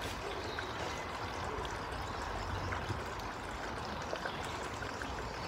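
Water pumped through a hose pouring steadily into a part-filled pond, with a few faint knocks from bricks being set on the rubber liner.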